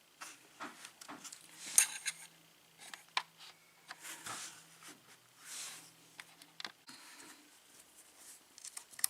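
Small metal lock-picking tools clicking and scraping against a Master padlock held in a vise: scattered light ticks and short rubbing scrapes, with a sharper click about two seconds in and another about three seconds in.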